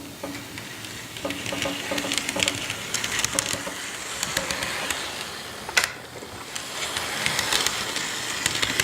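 HO scale model locomotive running on track: its small electric motor and gearing whirring steadily, with light clicking and rattling from the wheels and a sharper click about six seconds in.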